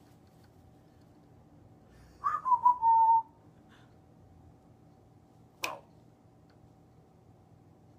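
African grey parrot whistling: a few short notes about two seconds in that run into a held note, sliding down slightly in pitch, followed a couple of seconds later by a single sharp click.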